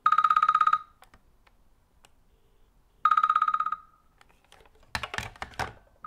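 A GPO 776 rotary dial telephone's mechanical bell rings in two short bursts about three seconds apart. Near the end, the plastic handset knocks and clatters a few times as it is set down on its cradle.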